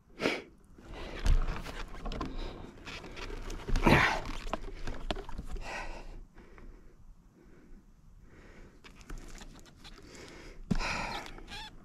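Bicycle ridden over a dirt trail: scattered ticks and rattles from the bike on rough ground, with several short, loud rushes of noise, the loudest about four seconds in.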